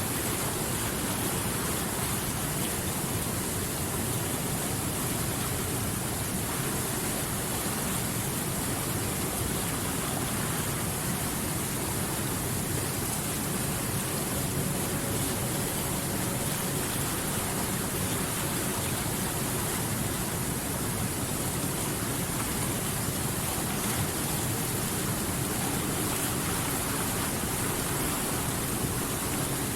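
Water rushing steadily, an even, unbroken hiss with no single splashes standing out.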